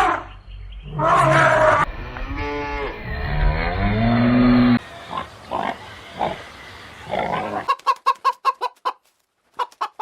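Farm animal calls cut together one after another: long drawn-out livestock calls, then a fast run of chicken clucks near the end.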